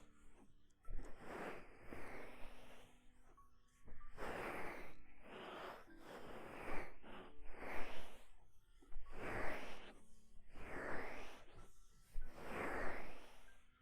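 Hands rubbing and pressing the ears of a binaural ASMR microphone in slow, repeated strokes, about one every one and a half seconds, with faint soft music underneath.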